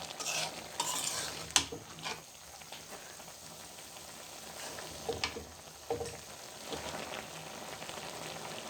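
Cauliflower and potatoes being stirred in a karahi, the utensil knocking against the pan now and then, over a low sizzle as the cooking liquid dries off.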